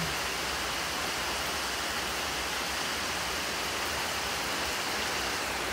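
Heavy downpour: rain pouring down in a steady, even rush.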